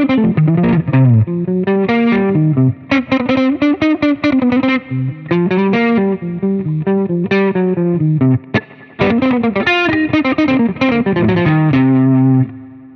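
Eastman El Rey ER3 electric guitar playing a fast, leaping single-note melody in short phrases, ending on a held low note shortly before the end. It is a transcription of the tune's vocal and marimba lines arranged for guitar.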